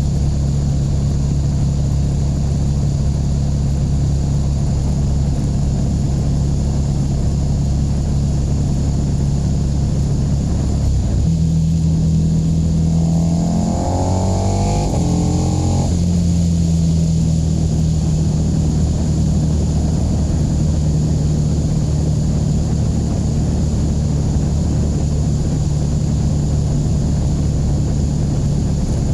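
KTM 1290 Super Duke R's V-twin engine under way at steady revs, with wind noise over the mic. About halfway through it picks up revs, rising in pitch for a couple of seconds, then drops back and runs steadily again.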